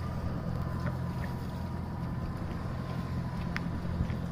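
Boat engine running steadily at an even speed, a constant low hum, with a faint click about three and a half seconds in.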